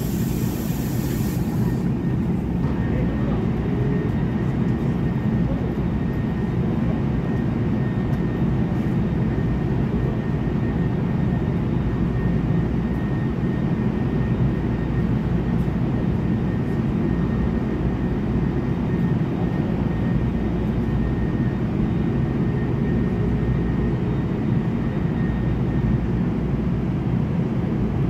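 A stationary NJ Transit Bombardier bilevel commuter train runs a steady low rumble, with a faint high whine held through most of it. A short hiss of air sounds in the first couple of seconds.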